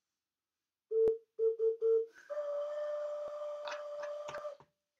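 The lower, low-pitched chamber of a clay double ocarina being blown. It plays a short note, three quick notes on the same pitch, then a slightly higher note held for about two seconds.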